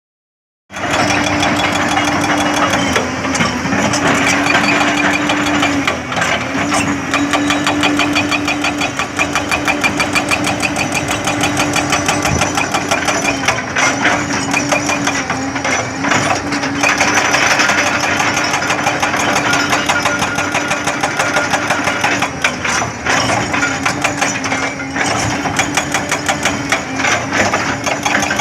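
Hyundai 220-9 excavator's diesel engine running steadily, with a fast even pulse and a steady whine over it. The sound cuts in suddenly just under a second in.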